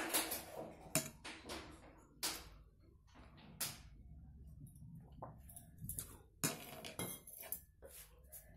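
A person eating rice and dal by hand: fingers mixing and scooping rice on a plate, and chewing. It is heard as a string of short, irregular smacks and clicks.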